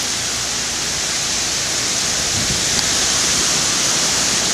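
Hurricane wind and rain outdoors: a steady, even rushing hiss.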